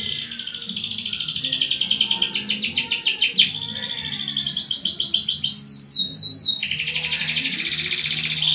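Domestic canary singing a long, fast song of rolling trills. About five and a half seconds in it breaks into a short run of separate downward-sweeping notes, then goes back into a rapid trill.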